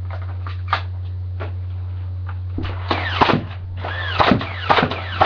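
Nerf Stampede motorised dart blaster firing on full auto: a few light clicks, then from about halfway in a rapid run of sharp shots, roughly two a second.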